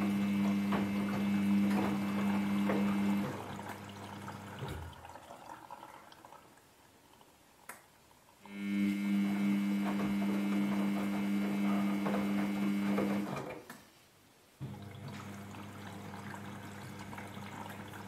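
Samsung Ecobubble front-loader's direct-drive motor humming with a high whine as it turns the drum, wet clothes sloshing and tumbling inside. The drum runs in bursts: it stops about three seconds in, starts again after a few seconds, stops once more, and turns more quietly near the end, the pauses where the machine changes direction.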